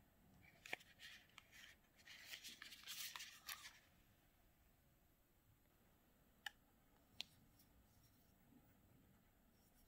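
Quiet handling of a small paperboard cosmetics box as it is opened and a plastic blush stick is taken out: a few seconds of soft rustling and scraping with small clicks, then two sharp light clicks a little under a second apart.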